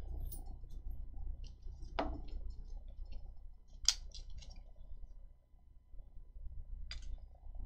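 Soft plastic coin flips being handled: faint rustling and ticking of the plastic, with three sharper clicks spread through, over a steady low hum.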